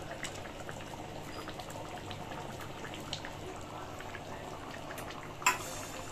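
Thick rajma curry simmering at the boil in a kadhai, its gravy bubbling with many small scattered pops. A single sharper click stands out about five and a half seconds in.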